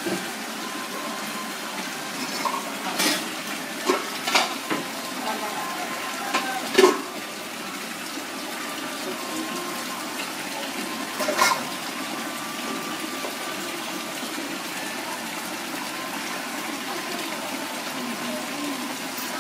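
A knife knocks sharply against a metal tray about five times in the first dozen seconds while roast pig is carved. Under the knocks runs a steady rushing background noise, with faint voices.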